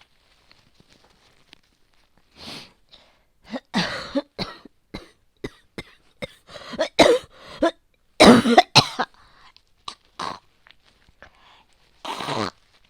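A woman's coughing fit: one cough, then a rapid string of coughs, and one more long cough near the end. It is a persistent chest cough bringing up heavy phlegm from a respiratory infection, which she puts down to a cold, asthma and bronchitis.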